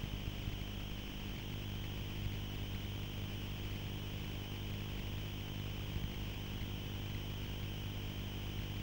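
Steady low hum made of several even tones, with a faint hiss over it, unchanging throughout.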